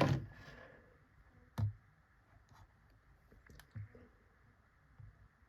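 A few faint clicks and light knocks from handling a cordless phone handset, spaced a second or two apart.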